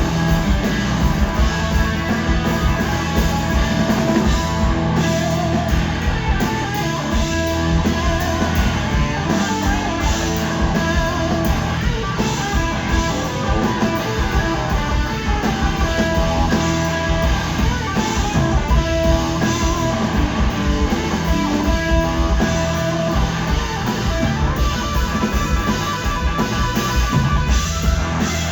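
Live blues-rock band playing an instrumental passage with no singing, electric guitar to the fore over bass and drums, with held guitar notes standing out.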